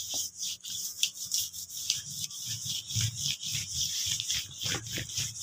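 Damp cloth rubbed back and forth over a tile-patterned kitchen counter surface, in quick repeated wiping strokes.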